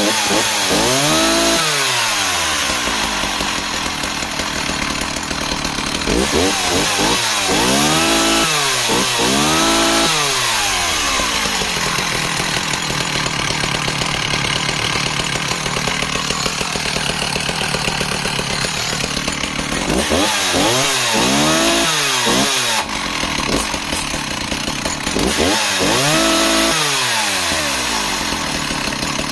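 Dolmar 110 two-stroke chainsaw running, its engine revved up and down in repeated blips in several bursts, with steadier running between them.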